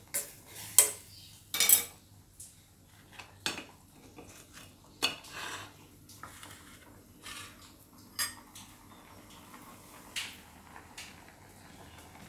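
Scattered clinks and knocks of a metal spoon against a metal cooking pot and of dishes being handled, irregular and about a second or more apart.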